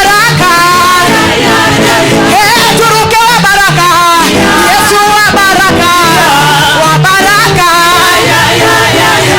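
Gospel praise music: voices singing over a band with a steady beat.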